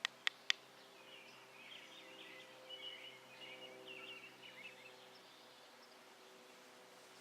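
A few sharp clicks in the first half second, then a bird chattering in short, irregular phrases for about four seconds over a faint steady hum.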